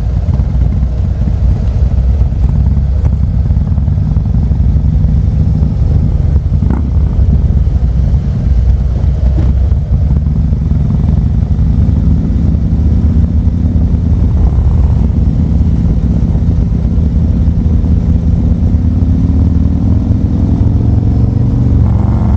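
Harley-Davidson Road Glide ST's V-twin engine running on the move, with heavy wind and road rumble on the low-mounted camera. The engine note climbs steadily over the last several seconds as the bike accelerates.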